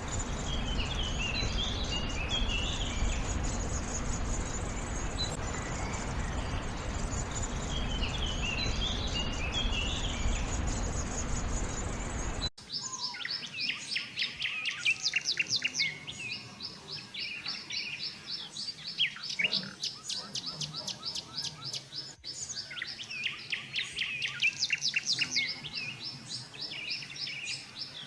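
Small songbirds chirping and trilling. For the first half a few short chirp phrases sit over a steady rushing noise. About halfway the sound changes abruptly to clearer, busier birdsong: fast repeated high chirps and trills.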